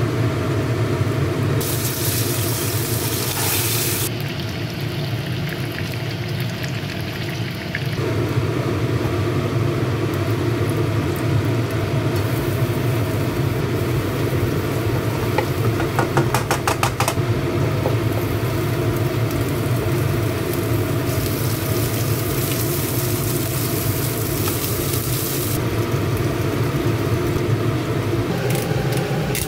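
Food sizzling as it fries in oil in a non-stick pan, stirred with a wooden spatula, over a steady low hum. The sizzle grows louder and hissier twice, around two to four seconds in and again for a few seconds past twenty, with a quick run of clicks about sixteen seconds in.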